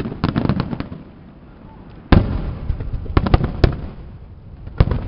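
Aerial fireworks shells bursting. A quick run of sharp cracks comes near the start, a heavy boom about two seconds in is followed by rumble, another rapid run of cracks comes just past three seconds, and a single sharp bang comes near the end.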